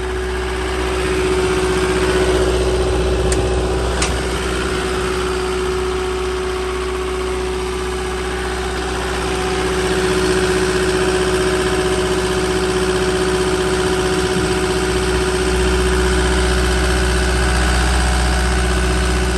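Cat 259D compact track loader's four-cylinder diesel engine idling steadily, with a steady whine over the drone. Two sharp metallic clicks come about three and four seconds in.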